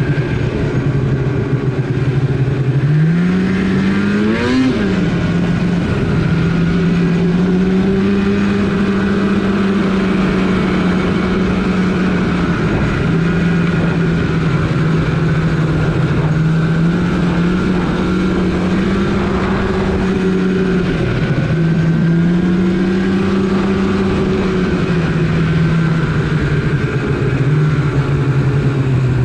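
Snowmobile engine under way: it revs up sharply about three seconds in, then runs at a steady cruising speed, dipping briefly in pitch a few times and picking back up.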